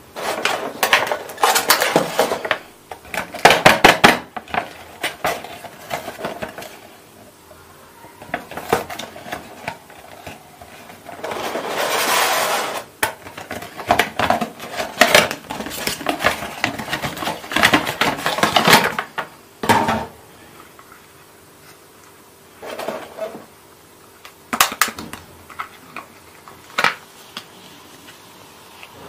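Hard plastic toy dollhouse parts and their cardboard box being handled: clusters of sharp clicks and clattering as the plastic pieces knock against each other and the packaging, with a longer scraping rub near the middle.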